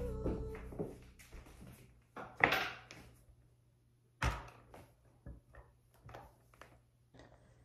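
Bare feet stepping onto a bathroom scale on a tiled floor: a handful of soft thuds and taps, the loudest about two and a half seconds in and a low thump just after four seconds.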